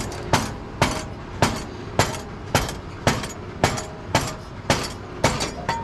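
Mallet striking a metal part of a Brunswick pinsetter, about a dozen steady blows roughly two a second, each with a short metallic ring.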